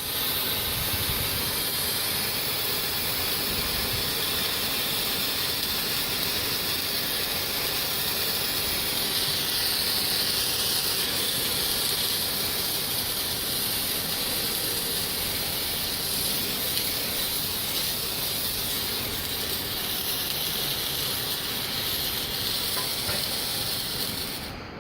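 Brothers Rosy Posy firework spraying sparks with a steady, loud hiss that dies away right at the end as it burns out.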